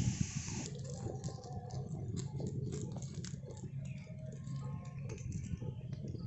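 Open wood fire crackling and popping with irregular sharp clicks under brinjals roasting directly in the flames on a wire mesh grill. A broad hiss cuts off under a second in.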